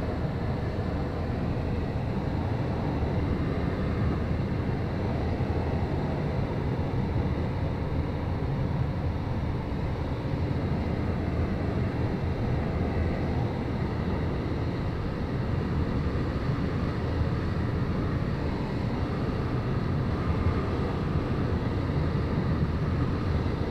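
Steady rush of airflow over a glider in flight, heard from inside the cockpit under the canopy.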